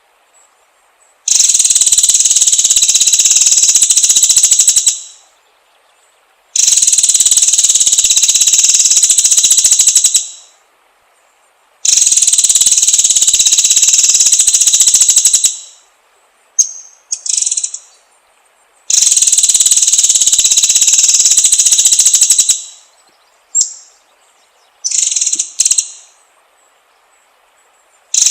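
White-rumped shama (murai batu) song: four long, harsh, rapid rattling phrases of about three and a half seconds each, high-pitched, with a few short sharp chips in the gaps between them.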